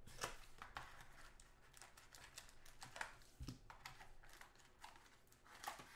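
Faint scattered taps and rustles of hands handling a cardboard trading-card box and its packaging on a tabletop.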